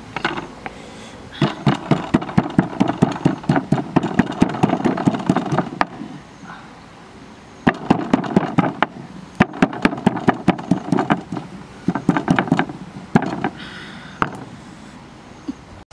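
Kitchen knife chopping fast on a thick round wooden chopping block, several strokes a second, in two long runs with a short pause between them.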